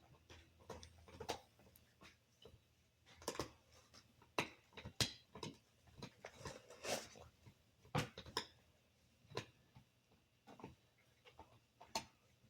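A dog chewing on a chew: irregular crunches and clicks, a few a second.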